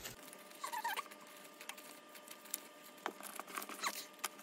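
Paper banknotes rustling and flicking as a stack of bills is handled and sorted by hand, with scattered light crinkles and taps.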